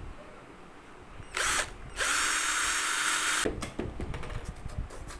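Cordless drill spinning a small abrasive bit to widen a drilled hole in a clock face: a brief burst, then about a second and a half of steady whirring. A few knocks follow as the drill is set down.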